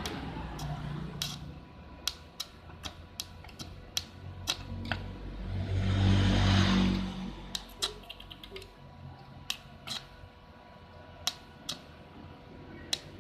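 Scattered sharp clicks and taps of small objects being handled on a workbench, with a louder rushing swell lasting about a second and a half just past the middle.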